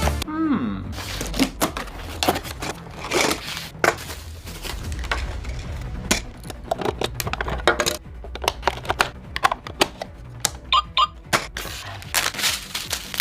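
Irregular clicking and clacking of small hard parts being handled, some clicks sharp and loud, over a low steady hum, with a few short high beeps near the end.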